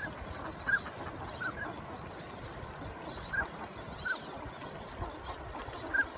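A flock of northern pintails on the water, with drakes giving short whistled calls, about seven scattered notes over a steady background hiss.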